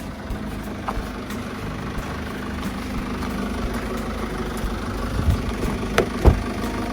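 Car engine running, heard from inside the cabin as a steady low hum and rumble, with a few short knocks about five to six seconds in.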